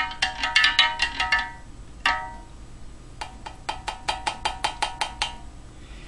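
A spoon stirring powdered drink mix into water, clinking against the side of its container about five times a second. Each clink rings briefly. There is a pause with a single clink about two seconds in, then a second run of stirring.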